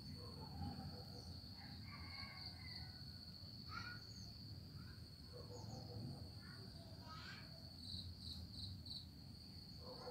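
Faint, steady high-pitched trill of a cricket in the background, with a few faint scattered sounds and a low background hum.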